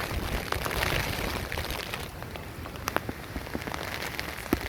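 Steady rain falling, with many scattered drops ticking close by and a couple of sharper knocks near the end.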